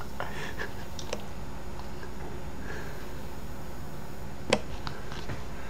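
Short, sharp plastic clicks from a water pitcher's orange flip lid snapping on its own: one loud click about four and a half seconds in, with a few fainter ticks around it, over a low steady hum. The uploader wonders whether pressure inside the pitcher makes it pop.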